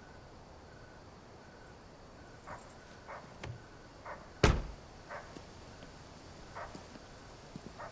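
A car being shut with one loud slam about four and a half seconds in, with a few softer knocks and steps around it. Faint, evenly spaced chirps run underneath.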